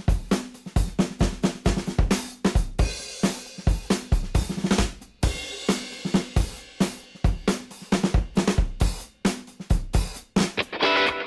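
Background rock music in a drum-only break: kick, snare and cymbal hits in a fast, steady rhythm, with guitar coming back in near the end.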